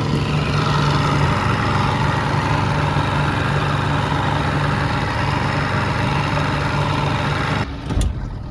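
Evinrude outboard motor idling steadily with a low hum. The sound cuts off abruptly about three-quarters of a second before the end, followed by a single sharp knock.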